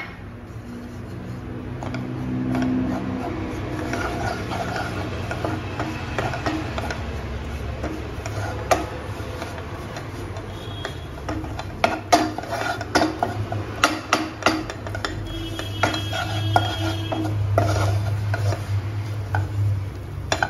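Wooden spatula stirring and pressing gram flour roasting in ghee in a nonstick kadai, with scrapes and knocks against the pan that come more often in the second half, over a steady low hum.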